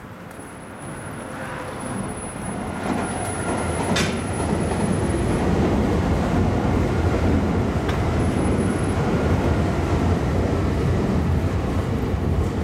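A Nankai electric train running on the elevated track overhead. A low rumble builds over the first few seconds and then stays loud and steady.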